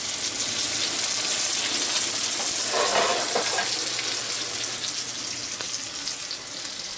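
Butter and meat juices sizzling in a stainless-steel skillet around a freshly seared venison backstrap, a steady hiss that grows fainter over the last couple of seconds.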